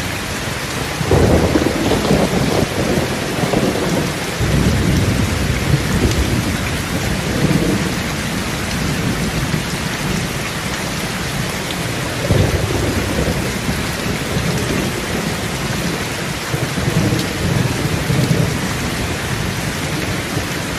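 Truck-wash jets spraying water and coloured foam onto the side of a tow truck: a steady, rain-like hiss of spray drumming on the cab and fuel tank, with surges of heavier low rumbling a second in, again about twelve seconds in, and near the end.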